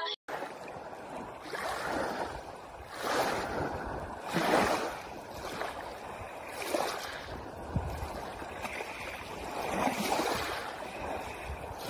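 Small sea waves breaking and washing over a pebble beach, swelling and fading several times.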